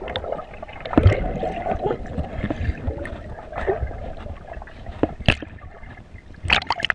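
Water rushing and bubbles gurgling around a GoPro Hero worn on a swimmer's chest underwater, heard through the camera's waterproof housing, with sharp clicks about a second in, around five seconds, and several near the end.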